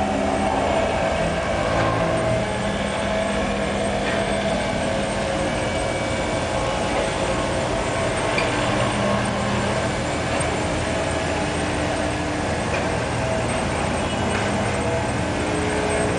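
Steady rushing and churning of spa pool water jets, with a low steady hum beneath.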